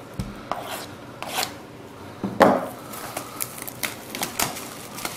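A cardboard box of trading-card packs being opened and handled by hand: irregular scraping, rubbing and clicks, with the loudest scrape about two and a half seconds in.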